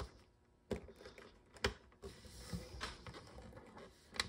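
A handful of sharp plastic clicks and taps, about a second apart, over faint rustling as a plastic action figure, McFarlane's Gorilla Grodd, is handled, its joints posed and its feet set on a surface to make it stand.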